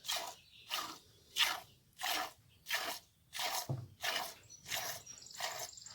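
Goat being milked by hand: streams of milk squirting into the pail in a steady rhythm, about three squirts every two seconds.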